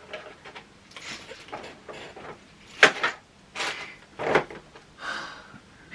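Board-game pieces and packaging being handled: several brief sliding and rustling noises, the loudest about three seconds in.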